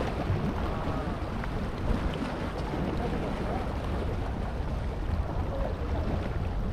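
Small waves washing and splashing over a rock shelf at the water's edge, with steady wind buffeting the microphone.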